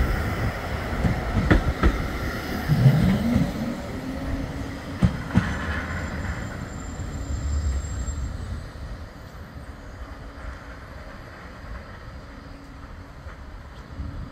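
Bombardier Flexity 2 electric tram passing close by: a low rumble with sharp knocks in pairs as its wheels run over the track, fading away over the second half as the tram draws off.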